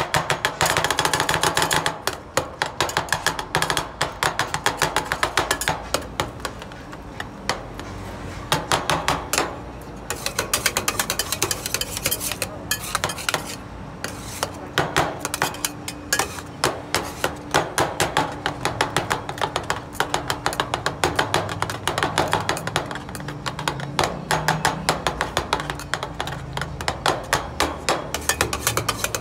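Metal spatulas chopping and tapping on the cold steel plate of a rolled ('iron') ice cream griddle as the mixture is worked: a fast run of clacks, several a second, with a few looser stretches.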